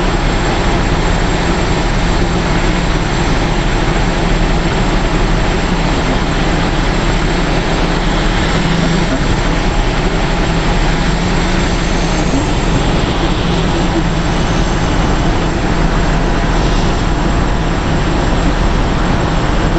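Heavy excavator's diesel engine running steadily, a loud, even drone with a constant low hum.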